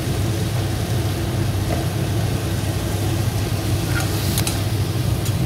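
A pan of onion-tomato masala cooking on the stove over a steady low hum. A couple of sharp spoon-against-pan clicks come about four seconds in.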